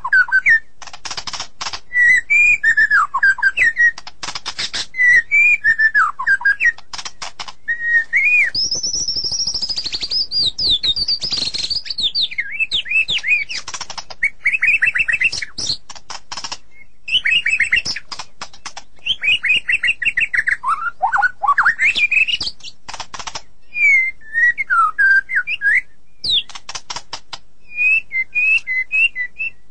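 White-rumped shama (murai batu) singing a long, unbroken song: clear whistled phrases sliding up and down in pitch, mixed with quick runs of dry clicking notes.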